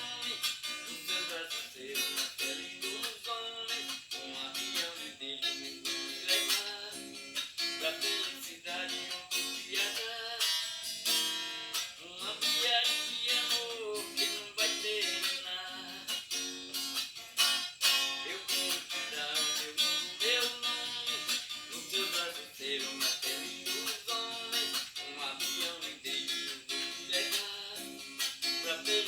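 Acoustic guitar strummed in a steady rhythm, with melodic notes picked over the chords: an instrumental passage of a song.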